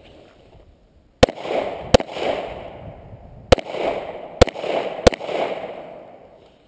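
Arsenal SGL 31-94 AK-74-pattern rifle in 5.45x39mm firing five aimed single shots, two and then three, each followed by a long rolling echo off the surroundings.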